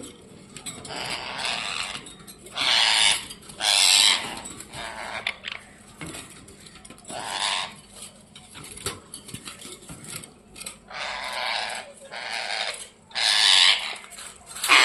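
Ringneck parrot giving harsh, raspy squawks, about a dozen short bursts at uneven intervals, the angry calls of a parrot worked up and fighting.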